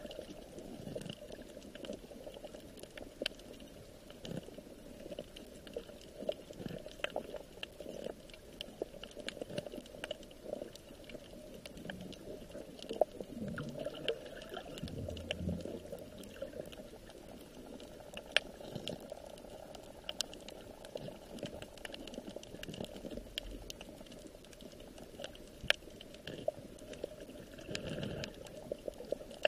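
Water bubbling and trickling steadily, with many small clicks and ticks scattered through it; a few sharper clicks stand out.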